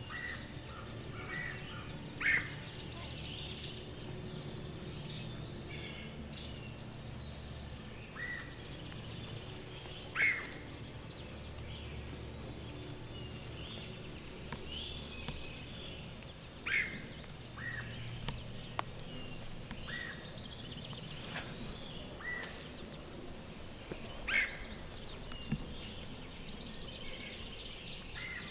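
Songbirds singing in spring woodland: high song phrases repeat every few seconds, with a louder short call every six to eight seconds.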